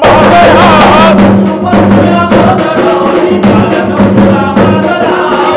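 Backing music of a Telangana folk song, played between sung lines: a steady drum beat under a wavering melody line.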